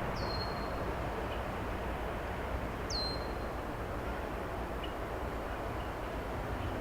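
A bird gives two short high calls about three seconds apart, each a quick downward slide into a briefly held note. Under them runs a steady low rumble and hiss of outdoor background noise.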